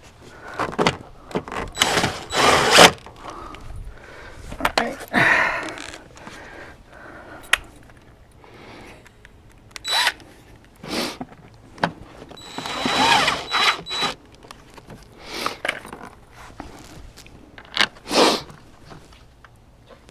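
Cordless drill-driver running in short bursts, several times over, driving the screws back into a car's interior door panel, with handling knocks in between.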